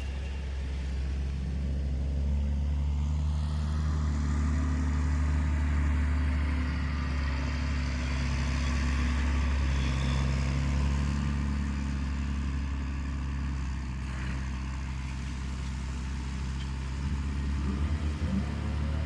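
New Holland T7.060 tractor's six-cylinder diesel engine running at a steady pitch, a low drone that grows slightly louder through the middle and eases off later.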